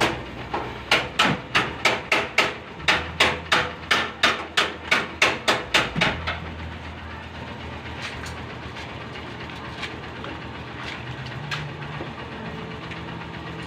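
A hammer striking metal in a fast, even series of about twenty blows, roughly three a second, that stops about six seconds in. After that only a steady hiss remains, with a few faint clicks.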